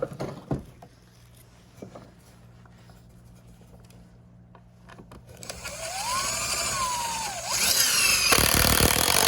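Power drill driving a wood screw into a board: a few knocks at first, then about five seconds in the motor whirs up, its pitch rising and falling, and it gets louder near the end as the screw is driven home.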